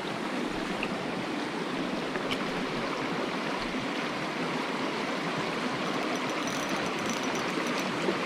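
Water of a small stream rushing steadily over rocks.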